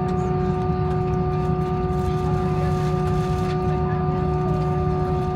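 Steady cabin noise of an Airbus A321 taxiing: a low rumble with a constant hum of several fixed tones from the engines at idle and the aircraft's systems.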